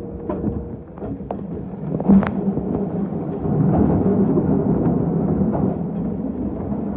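Kintetsu electric train running on the rails, heard from inside the driver's cab: a steady rumble of wheels and running gear with a few sharp clicks in the first couple of seconds, growing louder about three and a half seconds in.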